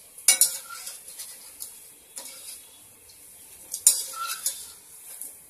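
A metal slotted spoon clinking and scraping against a steel kadhai as moong dal fritters are turned in hot oil, over a faint sizzle of frying. A few sharp clinks, the loudest about four seconds in.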